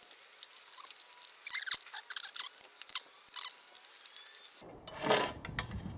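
Small metallic clicks and scrapes of a spanner working a nut and bolt on an antenna mount, with a louder clatter of handling about five seconds in.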